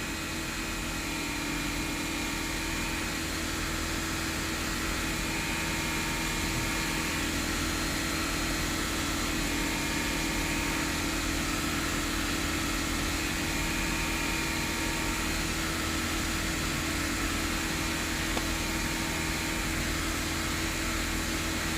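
2011 Audi A3's 2.0-litre turbo four-cylinder engine idling with a steady, unchanging hum while the scan tool runs the evaporative-system leak test.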